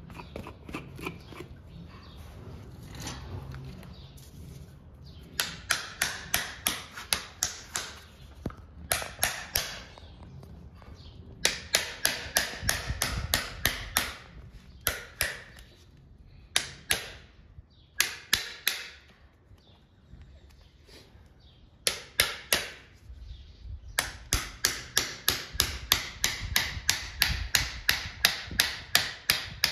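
Farrier's hammer striking a red-hot steel horseshoe on an anvil to shape it: runs of sharp ringing blows, about four a second, broken by short pauses. In the first few seconds, before the hammering starts, a low steady roar from the gas forge.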